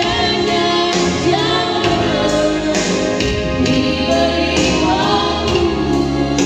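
A woman singing a Christian song into a microphone through PA loudspeakers, over a backing track with bass and drums.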